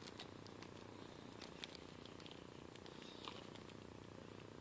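Faint handling of a steel keyway broach and its bushing in plastic wrap: a few light clicks and ticks over a steady low hum.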